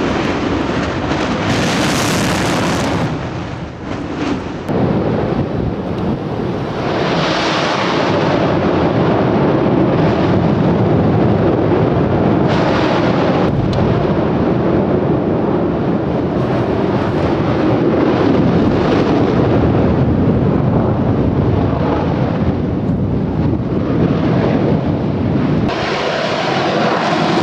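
Dukono volcano in explosive eruption: a continuous loud roar of gas and ash blasting from the vent, with a brief harsher hiss about two seconds in.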